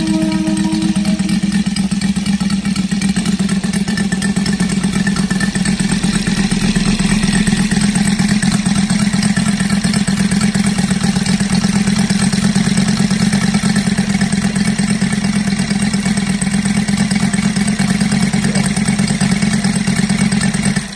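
Saito FA-325 R5 five-cylinder radial model aircraft engine, converted to run on petrol, running steadily under power and turning a wooden propeller.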